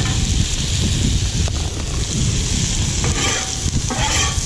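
Food frying on a hot, oiled Camp Chef FTG600 flat-top griddle: a steady sizzle, with wind rumbling on the microphone underneath. About three seconds in come two short bursts of a brighter, scraping sound.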